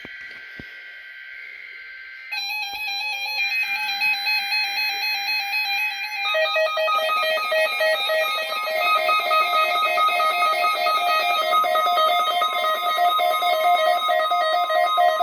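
Several NOAA weather alert radios going off together for a required weekly test. It opens with a screechy two-tone burst of EAS data (the SAME header). From about two seconds in, the radios' pulsing alarm beeps start up at different pitches, and more join at about six and seven seconds until they overlap.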